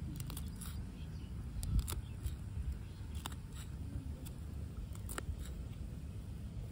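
Scattered light clicks and taps, about eight or ten spread unevenly, over a low steady rumble.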